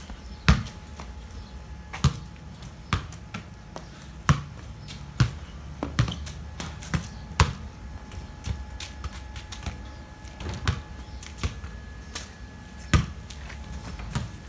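Soccer ball being kicked and bouncing on concrete: a run of irregular sharp thuds and slaps, one or two a second, a few of them much louder.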